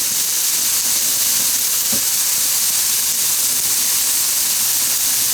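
Food frying in a hot pan: a steady sizzle, with a faint tick about two seconds in.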